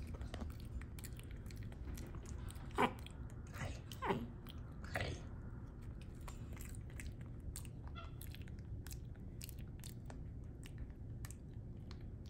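Capuchin monkey eating banana, its mouth making small wet smacking clicks as it mashes the soft fruit with its tongue. About three to five seconds in come three short squeaks, each falling in pitch; the first is the loudest.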